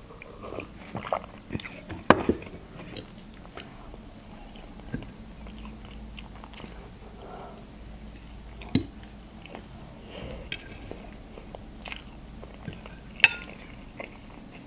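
Close-up mouth sounds of eating mashed potato: chewing and swallowing, with a few sharper clicks from the fork and cup.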